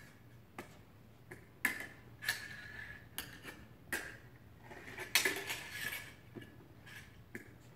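Fencing blades clashing and scraping against each other: an irregular series of about ten sharp metallic clicks, most with a short ring. The loudest clash comes a little after five seconds in.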